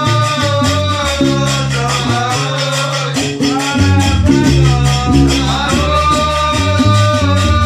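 Gnawa music: a guembri bass lute plays a repeating low riff while iron qraqeb castanets clack in a steady, fast rhythm, with a sung vocal line over the top.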